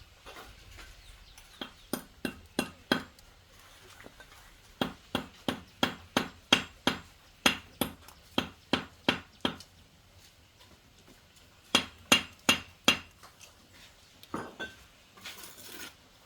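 Hammer blows in quick runs of sharp knocks, about two or three a second, with pauses between the runs and a last single knock near the end.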